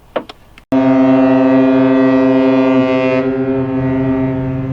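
Ship's horn sounding one long, steady blast that starts abruptly about a second in and is still going at the end; its higher tones fall away about three seconds in.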